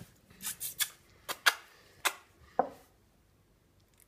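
Six or so short, sharp clicks and taps spaced irregularly over about three seconds, one of them trailing a brief falling squeak; then it goes quiet.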